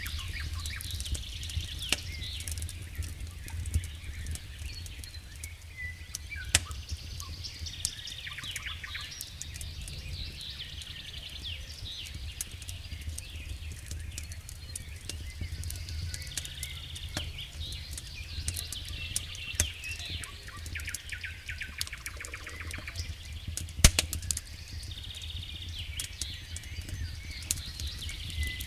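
Wood campfire crackling, with scattered sharp pops and one loud snap about 24 seconds in, over a low steady rumble. Small birds sing throughout with repeated chirps and trills.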